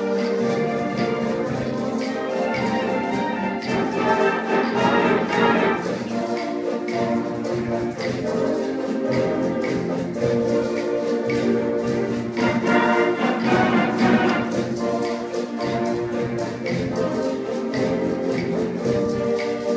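A high school concert band with a featured bassoon ensemble playing sustained wind chords, swelling louder about four seconds in and again about twelve seconds in.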